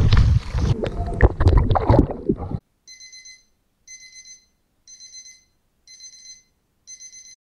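Loud rushing and knocking noise, with splashing, from a camera being moved about at the water's edge, cut off suddenly about two and a half seconds in. Then five short high electronic beeps, about one a second: a text-appearing sound effect for words popping up on a title card.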